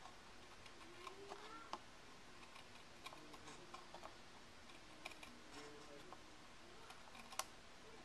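Paper snips trimming a small piece of cardstock: faint, scattered clicks and snips, the sharpest one near the end.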